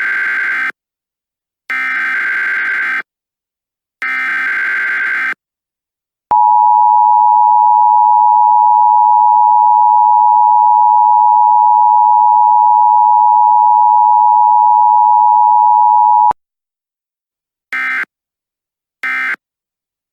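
Emergency Alert System tones. Three bursts of buzzing digital SAME header data come first. The two-tone attention signal follows, held steady for about ten seconds and cutting off sharply, and then three short data bursts.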